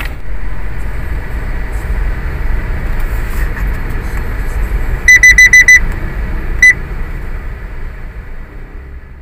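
Steady low rumble of road and engine noise inside a new Toyota Rush on the move. About five seconds in there is a quick run of six short, high electronic beeps, and a single beep follows a second later. The rumble fades away near the end.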